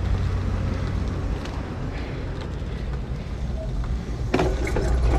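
Idling work truck engine, a steady low hum, under the noise of bicycle tyres rolling on the road, with a few knocks about four seconds in.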